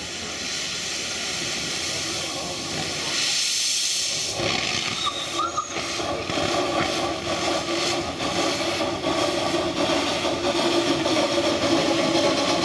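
Small narrow-gauge steam locomotive hissing steam from its cylinder drain cocks, then chuffing in a quick, uneven beat as it moves off from about four seconds in.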